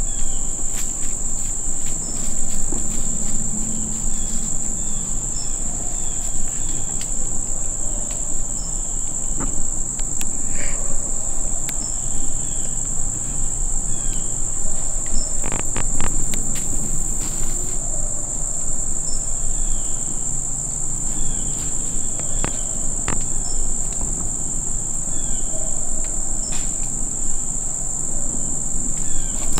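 Steady, high-pitched chorus of crickets and other insects in the evening woods, one unbroken shrill drone, with faint short chirps repeating every second or two and a few light clicks and rustles.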